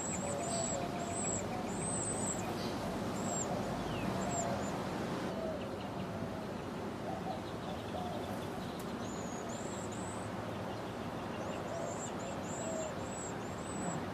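Birds chirping: short, very high-pitched notes repeated two or three times a second, which stop for about four seconds midway and then resume. Fainter, lower whistles and a steady background hiss run underneath.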